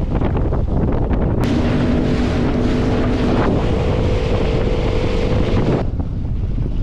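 Heavy wind buffeting the microphone over a small boat's outboard motor running at speed through choppy sea, with water rushing along the hull. From about a second and a half in, a steady engine tone is heard that steps up in pitch about halfway through, until shortly before the end.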